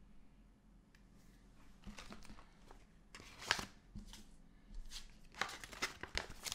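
Packaging being handled and rustled: a series of short, irregular rustles and light knocks, loudest about three and a half seconds in and again in a quick run near the end.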